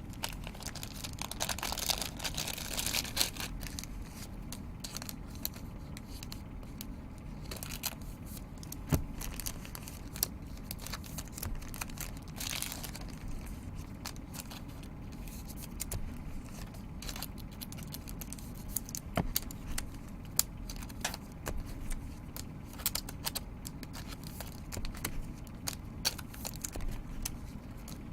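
Hands handling trading cards and their pack wrappers: wrapper crinkling and tearing in short rustles, about 1 to 3 seconds in and again around 12 seconds in, amid many light clicks and taps of cards being shuffled and set down.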